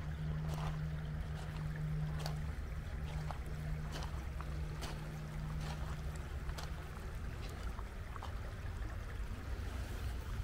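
Shallow river water rushing over a stony riffle, a steady wash with scattered small ticks and splashes, over a low steady hum.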